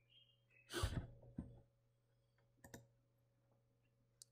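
A few faint computer mouse clicks and small handling knocks, spread a second or so apart, as the presentation slide is advanced, over a low steady electrical hum.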